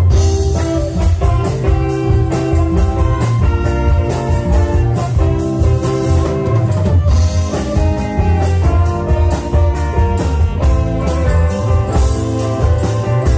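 A live band playing a tune: a drum kit keeping a steady beat, bass guitar, electric guitar, electric keyboard and tenor saxophone.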